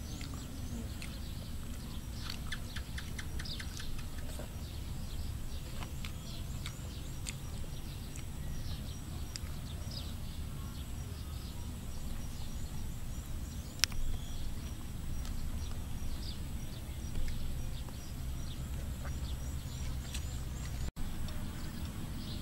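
Outdoor ambience: small birds chirping over a steady low rumble, with one sharp click about fourteen seconds in.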